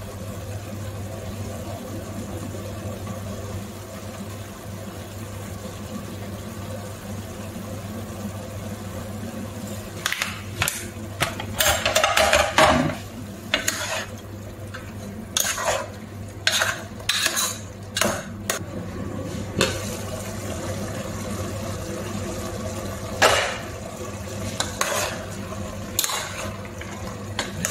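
A metal spoon stirring chicken pieces in a simmering pot, scraping and clinking against the pot's sides in irregular clusters from about ten seconds in, over a steady hiss from the pot on the gas burner.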